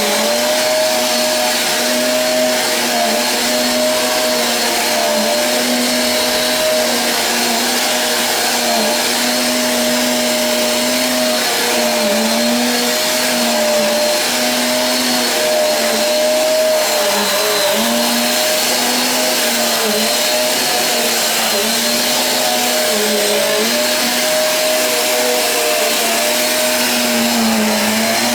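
Eureka AirSpeed One cyclonic upright vacuum cleaner running steadily while vacuuming a room. Its motor whine dips briefly in pitch every second or two as it is worked back and forth.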